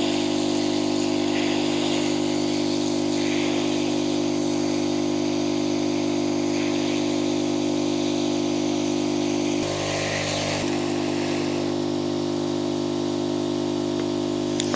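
Hot-air rework station blowing a steady hum onto a circuit board, heating a suspected faulty IC to desolder it. The hum's tone shifts slightly about ten seconds in.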